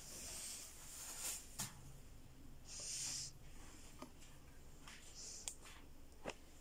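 A quiet room with a person breathing faintly three times, each a short hissy breath, and a few soft clicks scattered in between.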